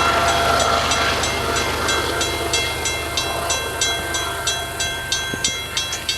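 CN intermodal freight train rolling past, its rumble slowly fading. Over it come rapid, sharp metallic strikes that ring briefly, about three a second.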